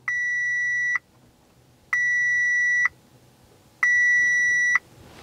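2013 Audi A4's dashboard warning chime beeping three times, each a steady high beep of about a second, roughly two seconds apart. The chimes are set off while the ECU is being flashed with a new tune, an expected side effect of the reprogramming.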